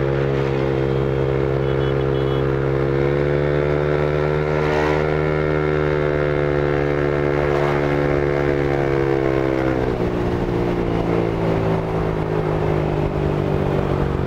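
Single-cylinder engine of a Honda Vario/Click 125 scooter fitted with a BRT 63zz big-bore kit, running under throttle as the scooter gathers speed on the road. The engine note holds nearly steady, rising a little in the middle and dropping slightly in pitch about ten seconds in, over steady wind and road noise.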